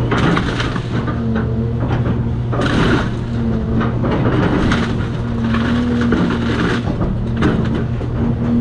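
Cat 336 hydraulic excavator's diesel engine running steadily, with repeated crunching and cracking of demolition debris.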